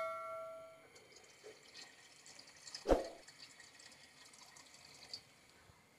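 Water poured from a glass jug into a pot of nihari broth, a faint splashing trickle, with a single sharp knock about three seconds in. A bell chime's ringing fades out in the first second.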